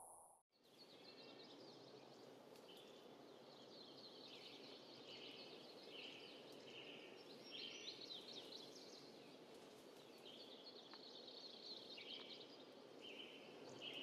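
Faint nature ambience: a soft steady hiss under repeated short, high chirping calls.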